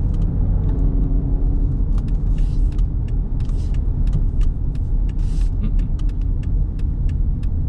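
Cabin noise of a 2010 Dodge Charger Police Package while driving: a steady low rumble of engine and road noise, with scattered small clicks and a few brief hisses.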